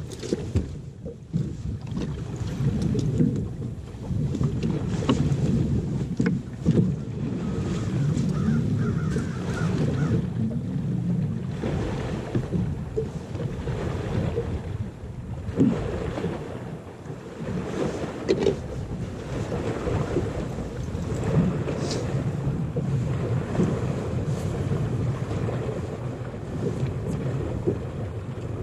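Wind buffeting the microphone, with small waves lapping against the bass boat's hull. The low rumble swells and fades irregularly.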